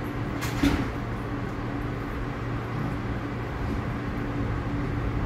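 R62A subway train standing at the platform with its onboard equipment running: a steady hum with two constant low tones, and a short burst of hiss about half a second in.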